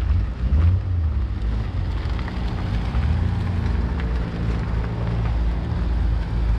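Car engines and exhausts running low as several cars drive slowly past one after another, with a Honda S2000 rolling by close near the end.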